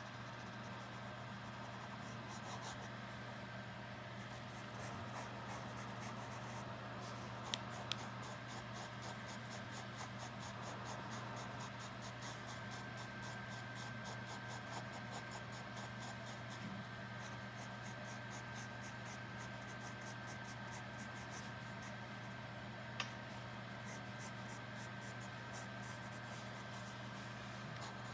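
A graphite pencil scratching across sketchbook paper in quick, repeated short strokes, hatching in a dog's fur. A steady low hum sits under it, and a few sharp clicks come about a third of the way in and again near the end.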